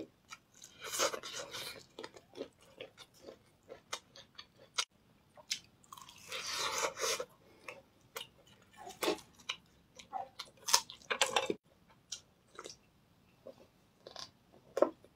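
Close-up mouth sounds of someone chewing and biting roasted meat off the bone: irregular wet smacks and crackles, with two longer, louder spells of chewing about a second in and around six to seven seconds in.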